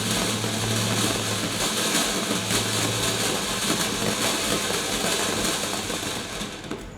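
Ground fountain firework (Phantom Serenity, a no-noise fountain) spraying sparks with a steady hiss over a low constant hum. It dies down near the end.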